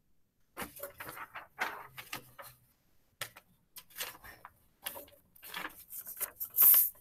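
Sheets of paper being folded and handled: a run of irregular crinkling rustles with short gaps between them, the loudest near the end.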